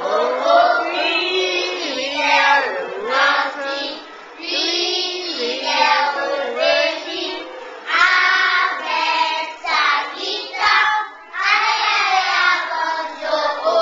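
A group of young schoolchildren singing a song together, in phrases with short breaks between them.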